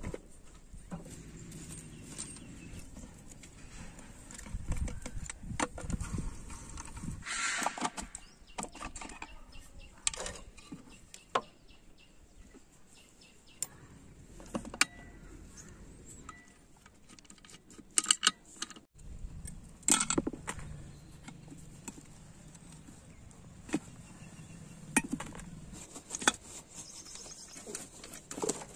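Scattered metallic clinks and knocks of hand tools and engine parts as a Hero Honda Passion Pro engine is taken apart: cover, crankcase halves and gearbox shafts and gears being handled. A louder cluster of clatter comes about seven seconds in, and a few sharp knocks near the middle.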